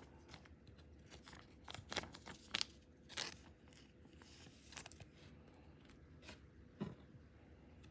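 Trading cards being handled and flipped through: scattered light clicks, slides and rustles of card stock and plastic sleeves, with a brief sliding hiss about halfway through.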